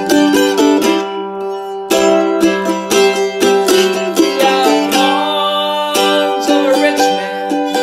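Acoustic folk music: quickly picked plucked strings playing a passage with no words sung.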